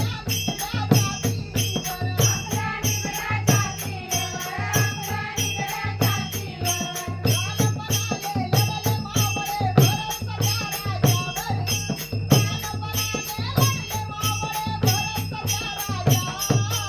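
Instrumental passage of a Marathi devotional song: a steady drum beat with shaker-like ticks and a melody line over it.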